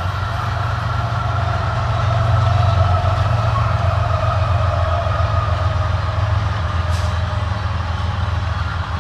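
Grain train of covered hopper cars rolling past, with a mid-train Canadian Pacific diesel locomotive going by. Its deep engine rumble is loudest about two to three seconds in over the steady wheel noise, with a faint whine above it.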